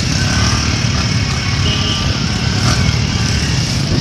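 Motorcycle running steadily while being ridden along a road, heard from on the bike.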